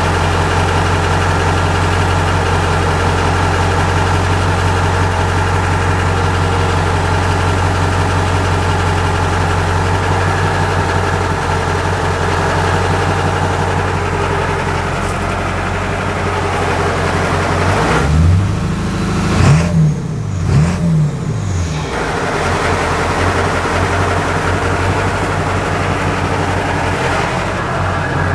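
Ford 7.3 litre Powerstroke V8 turbodiesel idling steadily, revved briefly three times in quick succession about two-thirds of the way through, then settling back to idle.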